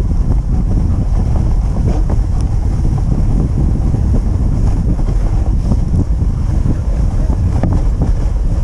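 Steady wind rumble buffeting the microphone of a camera on a moving dog sled, with the rushing noise of the sled running over the snow trail.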